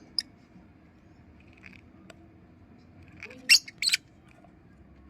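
African lovebirds giving short, shrill high-pitched squeaks: one brief call just after the start, then two louder calls in quick succession about three and a half seconds in.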